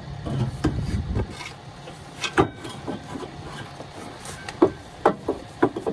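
Irregular knocks, clinks and scraping from hand tools and exhaust parts being worked on during an exhaust install.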